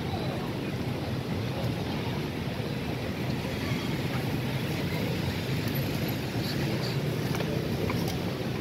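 Steady city street traffic noise: a low, even rumble of passing cars' engines and tyres.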